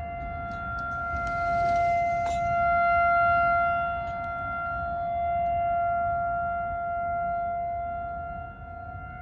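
Outdoor tornado warning siren sounding a steady tone, swelling and fading in loudness every two to three seconds. It signals a tornado warning.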